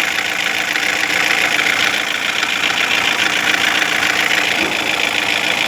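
2016 Toyota Corolla engine idling with a steady, rapid knocking: the customer's complaint noise, which persists even after the engine assembly and the OCV were replaced.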